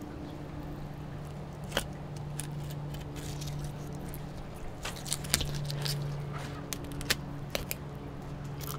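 Flexible fillet knife cutting through a mangrove snapper's flesh along the bones, giving scattered short clicks and crunches as the blade works, over a steady low hum.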